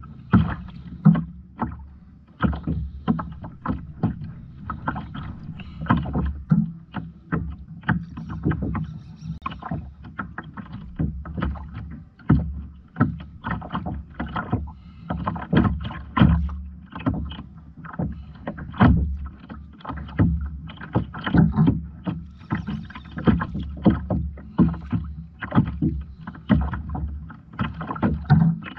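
Water slapping and knocking irregularly against a kayak's hull over a steady low rumble, with many sharp knocks and thumps.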